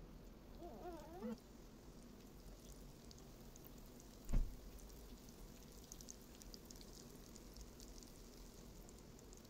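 Breaded raw-banana kababs frying in shallow oil, the oil faintly sizzling and crackling. A short wavering cry about a second in, and a dull thump about four seconds in, the loudest sound.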